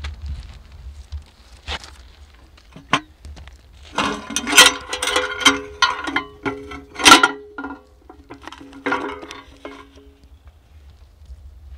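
Rusty sheet-metal summit-book box being opened and handled: a few clicks, then a dense run of metallic clanks and rattles about four seconds in, with a sharp clank near seven seconds and a brief metallic ringing. More light clatter follows as the book is lifted out.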